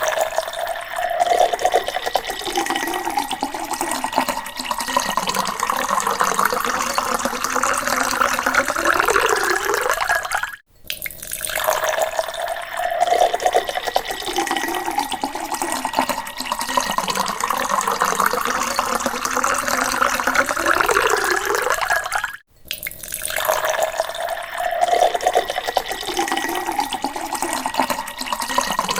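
Water poured into a glass, a steady splashing stream whose pitch rises as the glass fills. The pour cuts off abruptly twice, about 11 and 22 seconds in, and starts again each time.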